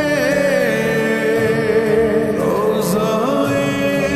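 Slowed-down, heavily reverberant naat singing: a voice holding and bending long notes over steady held tones, beginning the next line with the word 'rauza' near the end.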